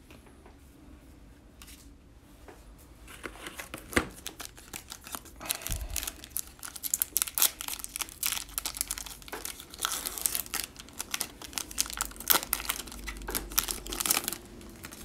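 Foil wrapper of a 2020-21 NBA Hoops basketball card pack crinkling and tearing as it is pulled open by hand: a sharp click about four seconds in, then a dense run of crackles and rips that stops near the end.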